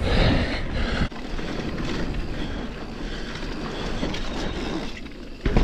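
Mountain bike riding down a dirt forest trail: steady rolling noise of the tyres on the ground, with a heavy thump near the end.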